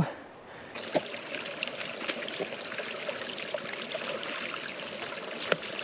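Footsteps pushing through dry grass and brush: steady rustling and crackling of stalks and twigs, with a sharper crack about a second in and another near the end.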